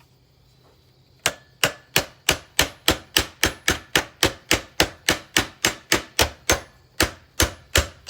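A rapid, even run of about two dozen sharp strikes, roughly four a second, starting about a second in: repeated blows on the vacuum cleaner during its demolition.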